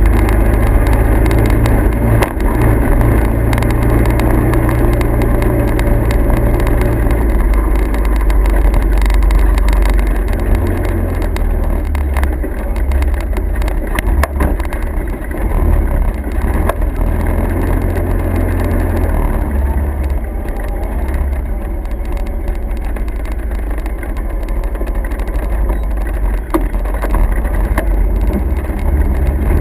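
Steady low rumble of a motor vehicle running, with engine and road noise that shifts in pitch and level a few times.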